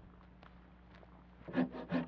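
Dry wood being handled: after a few faint clicks, a loud, irregular run of scraping and rubbing strokes begins about one and a half seconds in.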